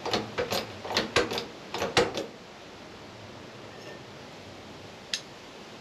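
Hydraulic bottle jack being pumped by hand: a quick run of sharp metal clicks and knocks, several a second, for about two seconds, then one more click near the end. The jack is pressing on a seized shaft that will not budge.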